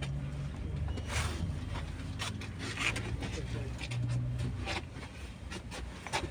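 Tram interior noise: a low electrical hum that comes and goes, over scattered clicks and rubbing knocks.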